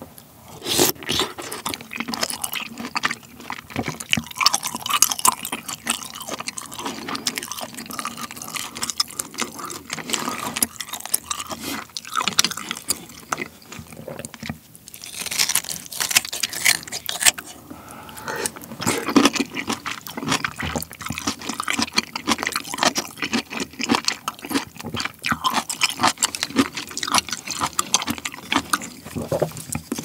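Close-miked eating of pork belly kimchi stew: wet chewing, slurping and mouth sounds, with spoon scrapes against the bowls. Midway, kitchen scissors snip through a large piece of stewed kimchi.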